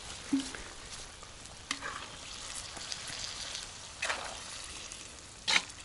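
Zirvak broth simmering in a cast-iron kazan over a wood fire, a steady sizzling hiss, with a few clinks and scrapes of a metal skimmer stirring it, the loudest near the end.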